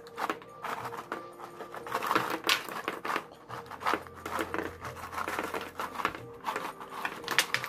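Plastic snack bag of Goldfish crackers crinkling and rustling in irregular bursts as the crackers are shaken out onto a painted board, with faint background music.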